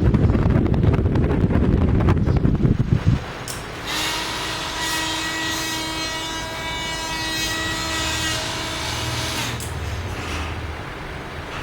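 Drilling machine running: a loud, rough rumble with rapid clatter for the first three seconds, then a steadier, quieter whine over a low hum that fades out about two seconds before the end.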